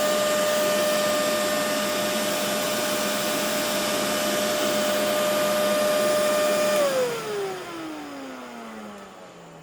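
Kenmore Intuition upright vacuum motor running with a steady high whine. About seven seconds in it is switched off, and the whine falls in pitch as the motor spins down.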